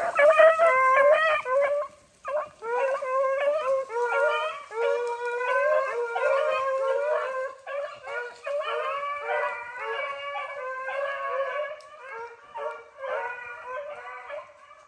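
A pack of beagles baying on a rabbit's track, several hounds' voices overlapping in a continuous chorus of drawn-out bawls. Loud at first, it grows gradually fainter toward the end as the pack runs off through the brush.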